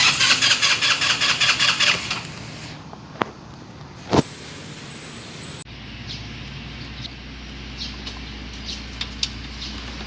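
GY6 scooter engine being cranked on its electric starter for about two seconds with a fast rhythmic pulsing, failing to catch, then a sharp knock about four seconds in. The hard start is one the mechanic puts down to an intake-manifold leak, where liquid gasket maker gets sucked in on the intake stroke.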